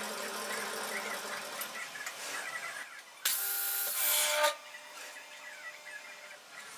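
Felder K500S table saw running: a loud hiss with a steady whine from the spinning blade starts suddenly about three seconds in, lasts about a second and a half and cuts off abruptly. Before it there is a quieter steady hum.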